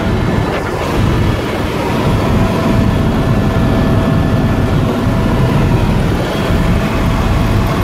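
Helicopter cabin noise in flight: the engine and rotor drone steadily and loudly, with a faint steady whine above it.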